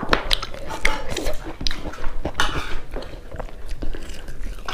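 Close-miked eating sounds: wet chewing with many sharp mouth clicks and smacks, from a person eating with her hands. Fingers rub and pick at food on a plastic tray.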